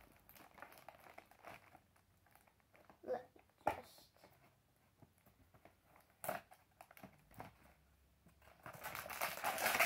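A small cardboard LEGO box being opened by hand: soft clicks and a few sharp knocks as the flap is pried and the box handled, then near the end a longer crinkling, tearing rustle as the flap comes open.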